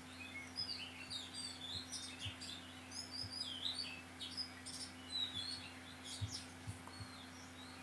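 Small birds chirping faintly in the background, many short chirps sliding up and down in pitch, over a steady low hum.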